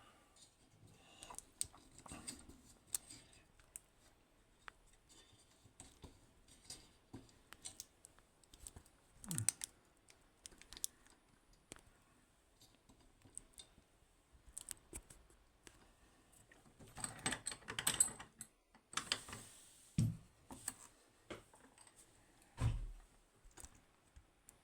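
Small metal clicks and light rattles of a high-security lock and lock-picking tools being handled, with a longer burst of rattling a little after halfway and two dull knocks near the end.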